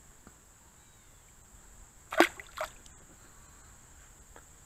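A small sunfish released back into the pond with a splash about two seconds in, followed a moment later by a second, smaller splash.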